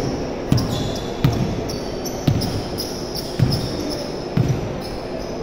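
Basketball dribbled on a hardwood gym floor: five bounces about a second apart, each a thud ringing in the large hall, with short high squeaks in between.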